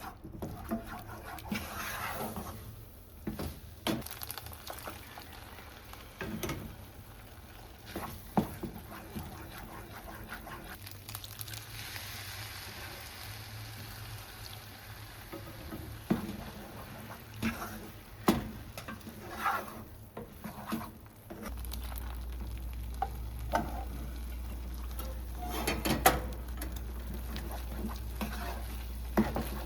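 Dinner being cooked: food sizzling in a pan while utensils stir and knock against the cookware in short, scattered clinks. A steady low hum comes on about two-thirds of the way through.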